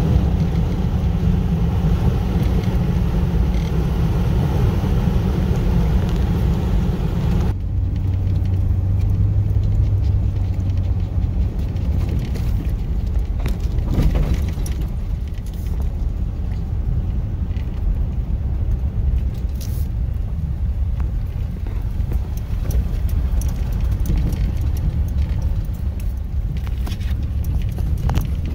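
Steady in-cabin road and engine rumble of a vehicle driving, first on pavement. About seven seconds in, a cut moves it onto a gravel road, where the rumble goes on lower with scattered light ticks.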